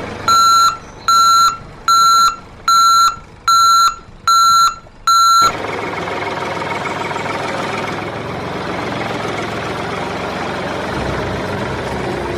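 Vehicle reversing alarm sounding seven evenly spaced, loud beeps, a little under one a second, then cutting off. A steady engine noise runs after it.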